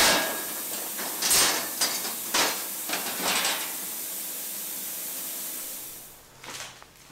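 Cut 316 stainless steel sheet parts handled on a plasma table's slatted bed, making several short scrapes and swishes as they are slid and lifted, with the crinkle of plastic protective film, over a steady hiss that stops near the end.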